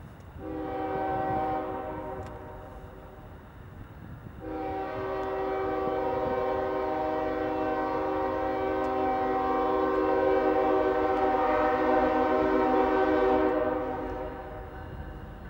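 Diesel locomotive air horn sounding a chord for the grade crossing: a blast of about a second and a half, then a long blast of about nine seconds starting about four seconds in.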